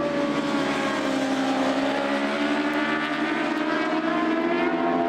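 Several superbike racing motorcycles' engines running hard through a corner. The engine note falls as they brake and turn in, then rises again as they accelerate out near the end.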